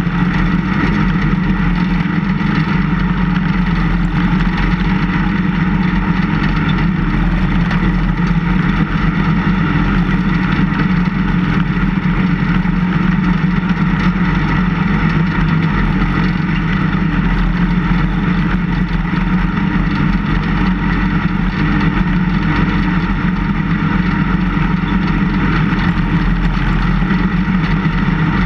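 Engine of a snow-plowing vehicle running steadily at an even pitch, with no clear revving or pauses.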